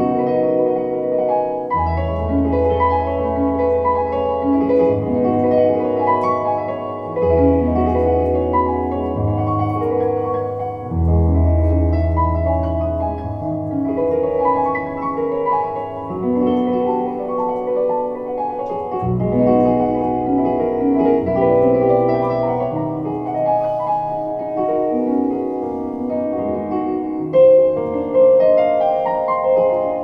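Solo piano music from a Nord Stage 3 stage keyboard played with a piano sound: sustained chords and a moving upper line over deep bass notes, each held for a couple of seconds before changing.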